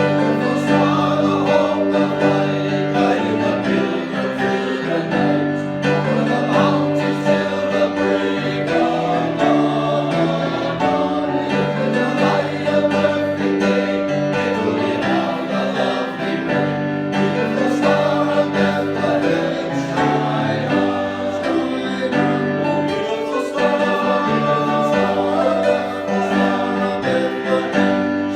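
A church choir singing a hymn-style Christmas song with instrumental accompaniment.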